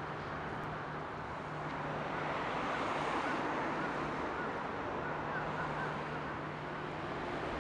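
Steady wash of wind and water with a low, steady engine hum from passing ships, and a few faint chirps in the middle.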